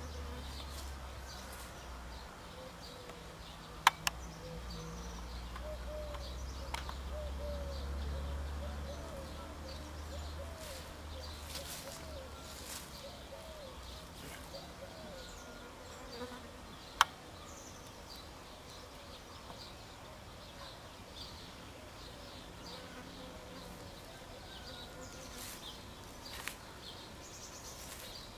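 Insects buzzing close by, the buzz rising and falling in pitch as they fly about. Two sharp clicks stand out, about four seconds in and again a little past halfway.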